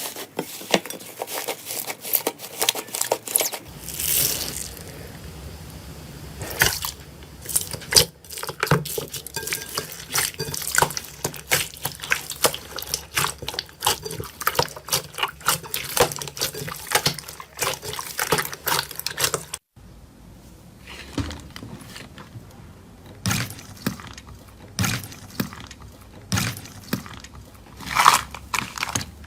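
Slime being squished, stretched and pressed by hand: a dense run of wet, sticky clicks and pops. There is a brief break about two-thirds of the way through.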